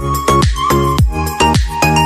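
Electronic dance background music with a steady beat of deep kick drums, about two a second, under a synth melody.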